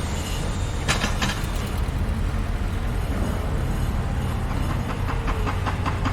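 Heavy construction machinery engine running with a steady low rumble. Two sharp knocks come about a second in, and a fast, even ticking of about four or five a second starts near the end.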